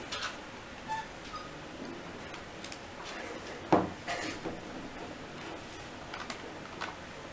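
Cable connectors and leads handled and plugged together on a desk: scattered light clicks and taps, with one louder knock about halfway through.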